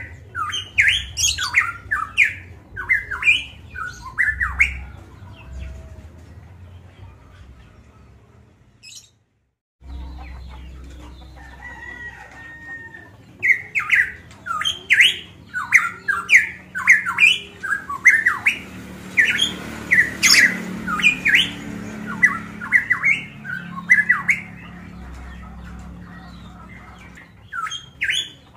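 Caged pitohui (cucak emas Papua) calling loudly in rapid runs of short, harsh notes. It calls in two bouts with a lull between them, the sound cutting out completely for about a second near the middle of the lull, and the calls start again near the end.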